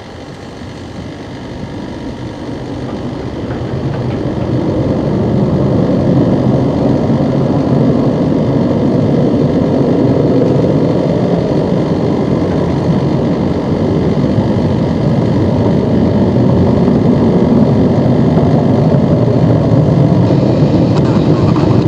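Four Kuznetsov NK-86 turbofans of an Ilyushin Il-86VKP (Il-80) at takeoff power as it rolls out of a touch-and-go and climbs away. The jet rumble builds over the first five seconds or so, then holds loud and steady.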